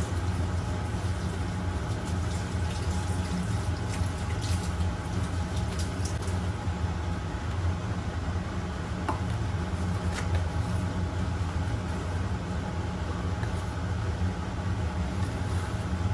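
A steady low machine hum, with faint crinkling and light taps about four to six seconds in as paper towel is pressed into a plastic tub.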